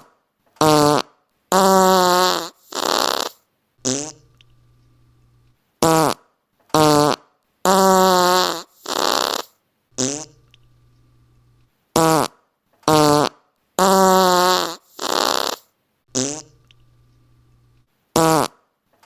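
Fart sound effects: a run of four or five loud blasts, most with a buzzing pitch that wavers, one breathy and hissy, and a short one to close. The same set repeats three times, about every six seconds.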